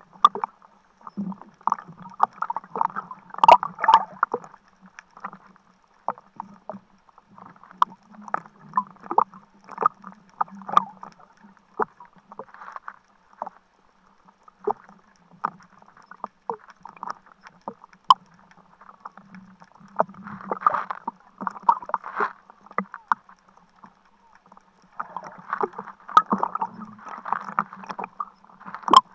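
Seawater lapping and splashing against a camera at the sea surface, in irregular bursts with scattered sharp clicks.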